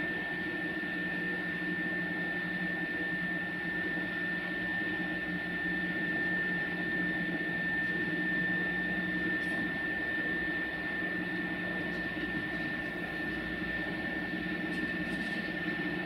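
Electric screw-column lifting jacks running as they raise a railway passenger coach: a steady high motor-and-gear whine over a low hum.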